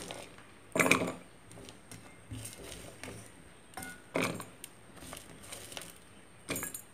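Short rustling and scraping handling noises, about five in all, from ingredients and utensils being worked with while cooking; the loudest comes about a second in.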